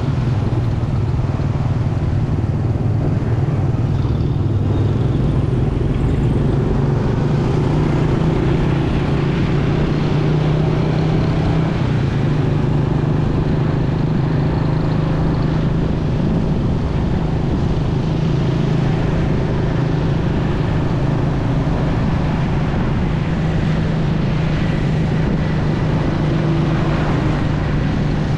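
Motorcycle engine running steadily while riding, with a constant low hum under road and traffic noise.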